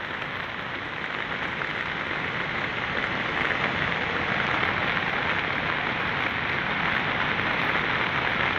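Steady rushing hiss of fast-flowing floodwater and falling rain, growing a little louder over the first few seconds.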